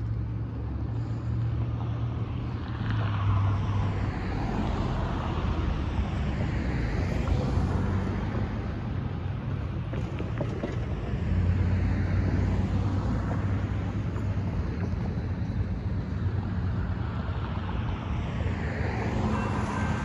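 Road traffic driving past, several cars and trucks one after another, each swelling and fading as it goes by, over a steady low rumble and some wind on the microphone.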